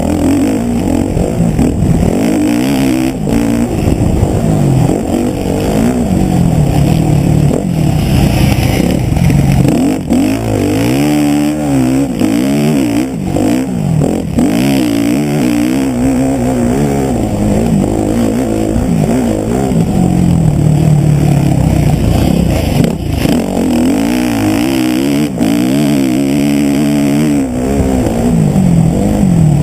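Motocross bike engine ridden hard, close up from the rider's own machine, its revs rising and falling again and again with short breaks as the throttle is opened and shut, under a constant rush of wind and track noise.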